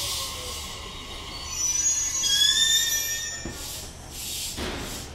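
JR Kyushu 817 series electric train coming to a stop at a platform. A falling motor whine dies away at the start, then high-pitched squeals from the brakes and wheels in the middle, followed by a few short hisses near the end.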